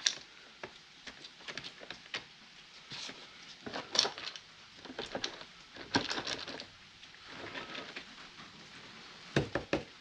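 Metal drive chains from a sawmill's mast and power feed clinking and rattling as they are handled and laid in automatic transmission fluid to soak. Scattered light clicks and knocks, with short bursts of clatter about four and six seconds in and again near the end.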